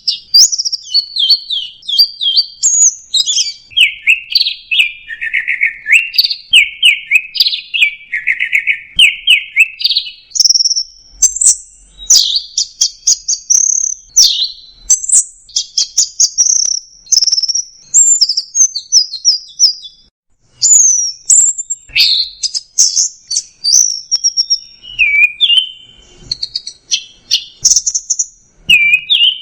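Orange-headed thrush singing continuously in quick, varied phrases of rapid scratchy notes that jump between mid and high pitch. The song breaks off briefly about twenty seconds in, then resumes.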